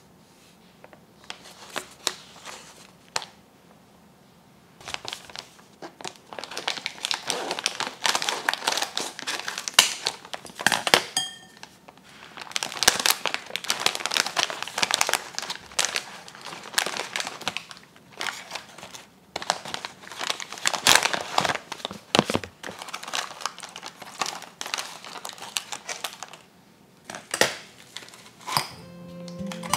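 Paper packaging of a chawanmushi seasoning mix crinkling and rustling as hands reach into the bag and pull out a packet. A few separate rustles come first, then dense, continuous crackling from about five seconds in until shortly before the end.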